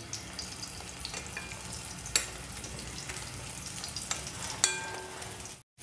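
A milk-soaked rusk shallow-frying in oil in a nonstick pan over low flame: a steady low sizzle, with two faint sharp clicks, one about two seconds in and one near the end. The sound breaks off briefly just before the end.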